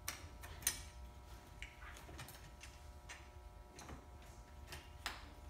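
Irregular light clicks and taps, about half a dozen sharper ones, from hands and a small Torx driver working at a Land Rover LR3's bonnet latch and alarm sensor assembly while it is being unscrewed and removed.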